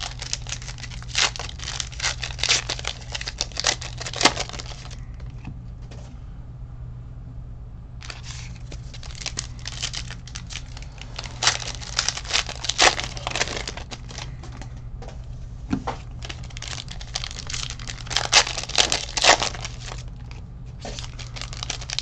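Foil wrappers of baseball card packs being torn open and crinkled by hand, in bursts of crackling with a pause of about three seconds around five seconds in.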